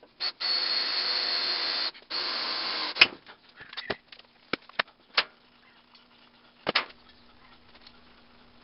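Cordless drill running in bursts of one to two seconds with short pauses, working into the steel of the barbecue, and stopping about three seconds in. Then several sharp clicks and clunks as tools are set down on a workbench.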